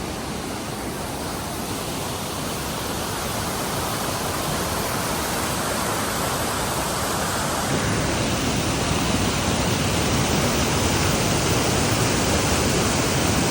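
Waterfall: a steady rush of falling water that slowly grows louder.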